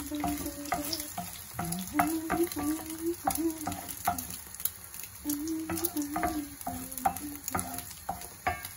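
Eggs sizzling in hot olive oil in an enamelled pan while a wooden spoon stirs and scrapes them, knocking against the pan again and again.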